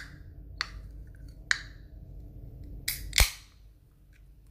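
Fingers prying and flicking at the pull tab of an aluminium soda can that is hard to open: a few sharp metal clicks, the loudest about three seconds in.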